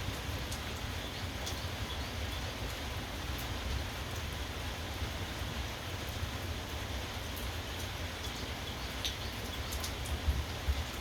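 Steady rainfall, with scattered sharp drops ticking close by over a low steady rumble.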